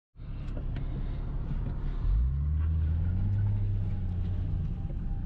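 Nissan 370Z Nismo's V6 engine heard from inside the cabin as the car pulls away in first gear; the engine note grows louder and rises a little about two seconds in, then holds steady.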